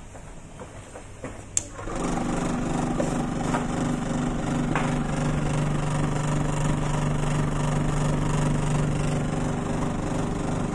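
A click, then the Maksindo MKS-AYK05 vibrating flour sieve's small electric motor starts about two seconds in and runs with a steady hum as it shakes wheat flour through its stainless steel mesh screen.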